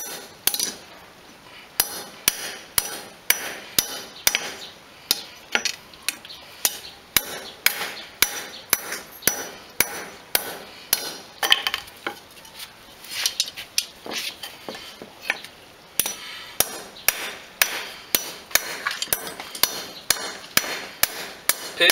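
Small hammer tapping an iron rod laid across a sledgehammer head used as an anvil, clinking about three times a second, with a couple of brief pauses. The rod is being struck a little at a time along its length to bend it gradually into a round ring.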